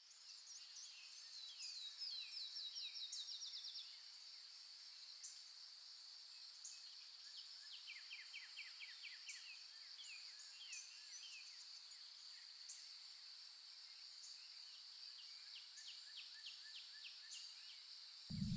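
Faint natural ambience: small birds singing in rapid falling trills and chirps over a steady high insect-like buzz. A low rumble starts right at the end.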